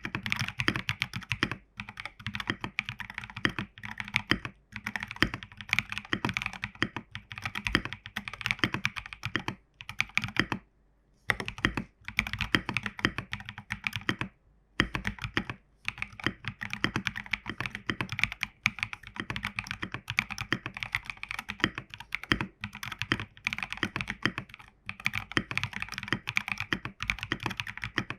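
Continuous typing on a Geonworks Frog WKL mechanical keyboard with stock Prevail Epsilon switches and MT3 keycaps: a rapid, irregular run of keystroke clacks, with a brief pause about eleven seconds in and another shorter one a few seconds later.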